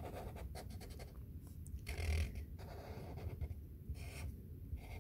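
Brown felt-tip marker rubbing quietly over paper as it traces outlines, in short strokes broken by brief pauses.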